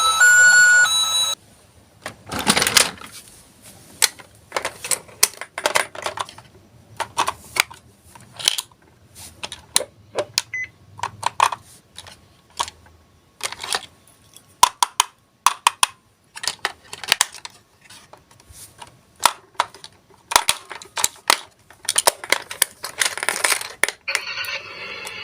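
Die-cast toy minicars clicking and clattering as they run and knock against each other and the course, with many sharp, irregularly spaced clicks. A short electronic beeping tune stops about a second in, and another electronic tune starts near the end.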